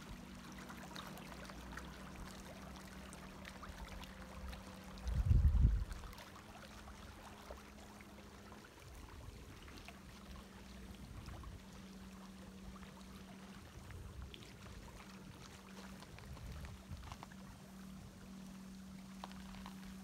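Small waves lapping and trickling among the rocks at the sea's edge, under a steady low hum. About five seconds in there is one short, loud low rumble.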